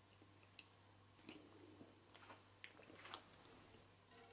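Near silence: a faint steady low hum of room tone with a few soft scattered clicks.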